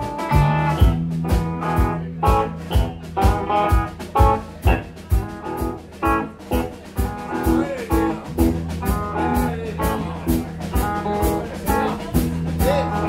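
Blues trio playing live: electric guitar over electric bass and a steady drum-kit beat.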